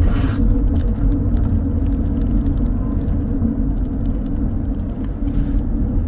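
Steady low rumble of road and engine noise inside a moving vehicle's cabin.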